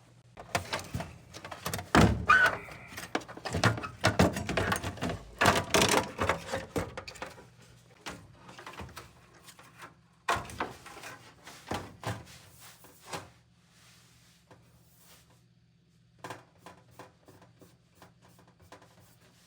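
Metal clanks, knocks and scrapes as a furnace blower motor assembly is worked loose and pulled out of its sheet-metal cabinet. The handling is busiest in the first seven seconds and again around ten seconds in, then dies down to a few scattered taps.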